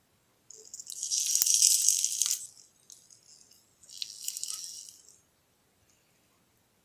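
Two bursts of rattling. The first, about half a second in, is loud and lasts nearly two seconds; the second, softer one comes about four seconds in.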